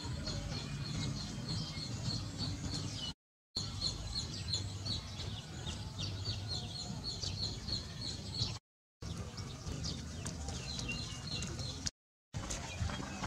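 Small birds chirping over and over in short high peeps, with a steady low hum beneath. The sound drops out to silence three times, briefly.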